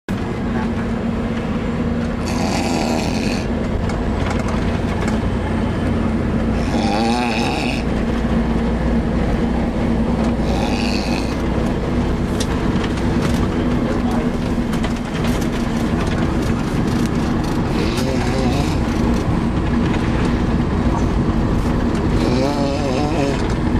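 A child snoring, five snores a few seconds apart, over the steady drone of a moving bus.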